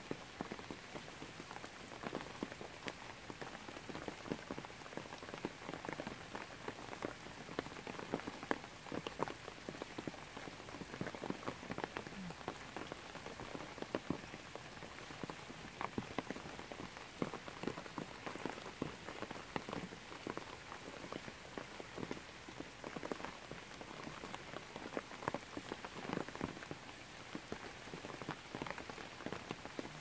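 Downpour of rain falling on the broad leaves of trees and undergrowth: a dense, steady patter, with many individual drops tapping distinctly close by.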